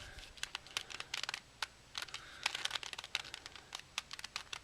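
Plastic clicks and clacks of a QJ Trajber's Octahedron, a 3x3-based twisty puzzle, being turned quickly by hand, in many irregular short clicks.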